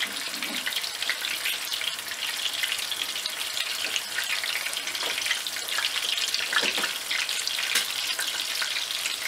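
Chicken kebab patty shallow-frying in hot oil in a pan: a steady sizzle with fine, continuous crackling.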